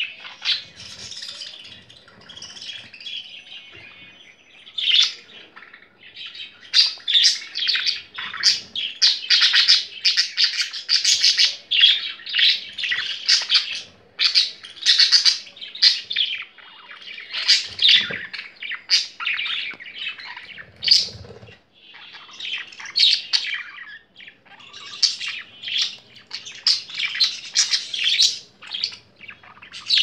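Budgerigars chirping and chattering: a dense run of short, high chirps and warbles with brief lulls.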